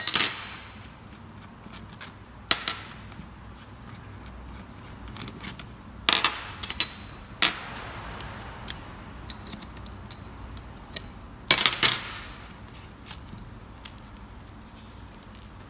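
Metal clinks and clanks of an open-end wrench and the steel nosepiece and mandrel of a rivet nut gun being handled and set down on a table. Loud strikes come at the start, around six seconds in and around twelve seconds in, each with a short ring, with lighter ticks between.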